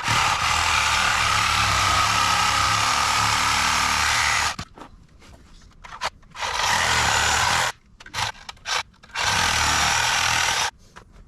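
Reciprocating saw with a freshly fitted blade cutting wood. It runs in bursts that start and stop abruptly: one long cut of about four and a half seconds, then several shorter ones.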